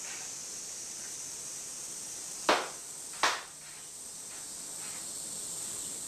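Two sharp hand claps under a second apart: the double clap (kashiwade) of Shinto worship before a shrine altar. A steady hiss runs underneath.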